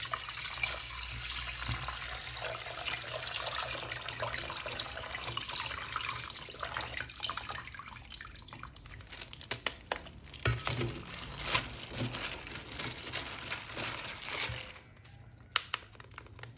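Water running from a tap, with knocks and splashes as a plastic toy figure is washed under it; the flow stops about fifteen seconds in.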